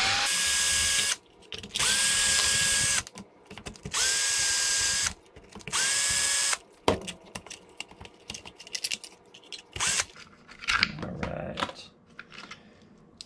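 Cordless electric screwdriver backing screws out of an RC buggy's center differential mounts in four short runs, each with a steady whine that rises quickly as the motor spins up. After the fourth run, light clicks and knocks of small parts being handled.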